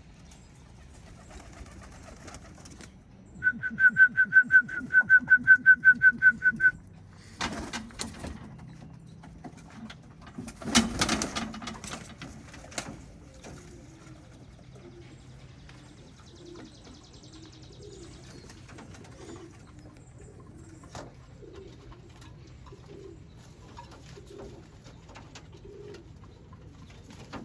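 Birmingham roller pigeons cooing, with soft wavering coos through the second half. About three seconds in there is a fast run of about sixteen high squeaks lasting some three seconds, the loudest sound here, and a brief rustle near the eleven-second mark.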